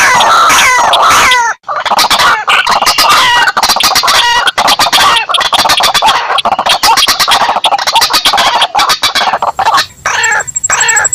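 White-breasted waterhens and crakes calling loudly and continuously, with harsh, rapidly repeated croaking and chattering notes, played as a bird-lure recording. The calling breaks off for an instant about one and a half seconds in, and a thin steady high whistle-like tone comes in near the end.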